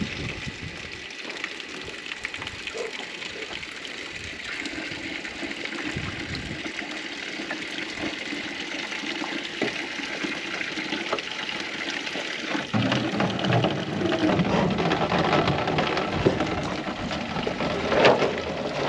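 Spring water pouring from a spout into a container being filled, a steady rush of running water that grows louder and fuller about two-thirds of the way through.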